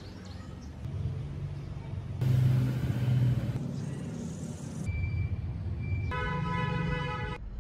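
Spliced car sound effects: an engine running, cutting abruptly from one clip to the next every second or so. A held horn-like tone sounds about six seconds in.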